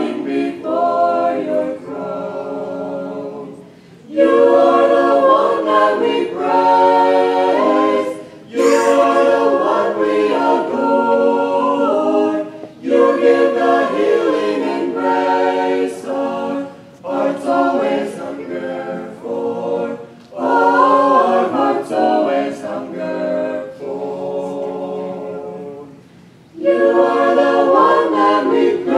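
Mixed group of men's and women's voices singing a hymn a cappella in harmony through handheld microphones, in long phrases with short breaks between them.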